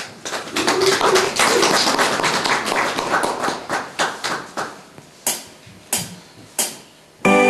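Audience applauding: dense clapping that thins out to a few last single claps between about five and seven seconds in. Instrumental music starts just before the end.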